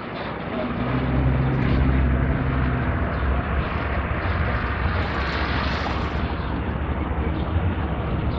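Street traffic: a vehicle engine runs close by with a low steady hum that is strongest in the first few seconds, over continuous road and street noise.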